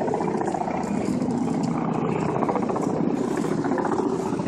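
A boat's engine running steadily under way, an even, pulsing rumble mixed with wind and water noise.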